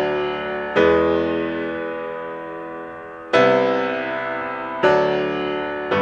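Slow piano music: chords struck one at a time, each left to ring and slowly fade, with four new chords about a second in, past three seconds, near five seconds and at the end.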